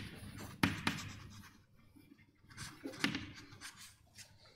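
Writing on a board: short scratchy pen or chalk strokes, a few in the first second and a scattered run about three seconds in.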